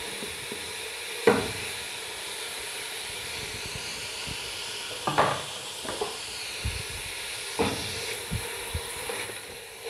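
Shredded cabbage and green capsicum frying in hot oil in an aluminium pot, a steady sizzling hiss as they are tipped in and stirred with a wooden spatula. A few sharp knocks against the pot are heard, the loudest about a second in.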